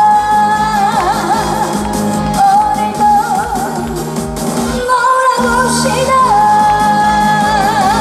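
A woman singing a trot song live over band accompaniment with a steady beat, holding long notes with a wavering vibrato.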